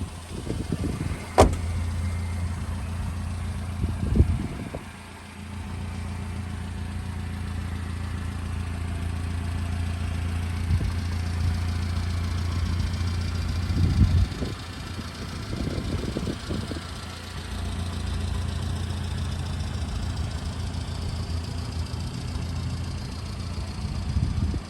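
Subaru Sambar kei truck's small supercharged four-cylinder engine idling steadily, with a sharp click about a second in and a few brief louder bumps.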